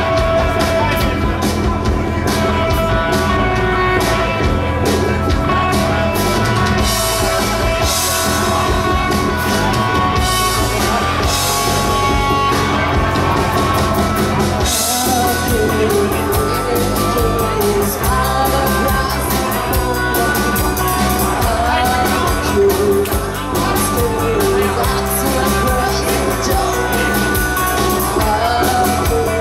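Live punk rock band playing electric guitars, bass and drum kit at a steady volume, with a woman singing lead into a microphone.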